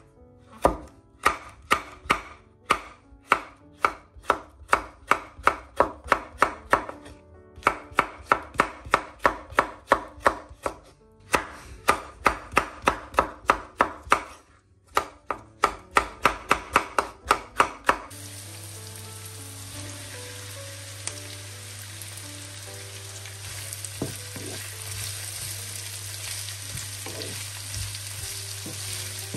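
Chef's knife chopping bell peppers into strips on a bamboo cutting board: sharp knocks about two a second, in several runs with short pauses. About two-thirds of the way in this gives way to sliced peppers and red onion frying in oil in a nonstick pan, a steady sizzle over a low hum, with a few light knocks of a wooden spatula stirring.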